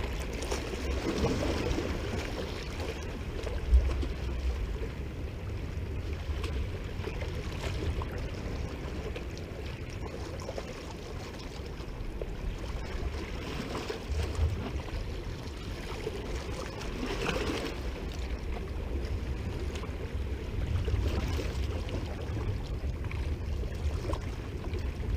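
Wind buffeting the microphone in a low, uneven rumble, over small sea waves lapping and sloshing against shoreline rocks, now and then briefly a little louder.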